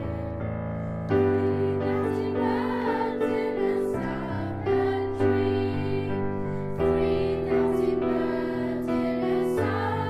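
A small choir of schoolgirls singing a song with piano accompaniment, the piano striking new chords every few seconds under the voices.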